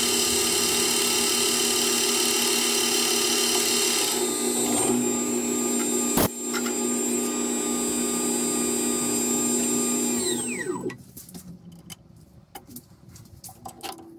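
Metal lathe running with a steady whine of motor and gearing, with a single sharp click about six seconds in. About ten seconds in it is switched off and the pitch falls as the spindle winds down. After that come a few light clicks and taps.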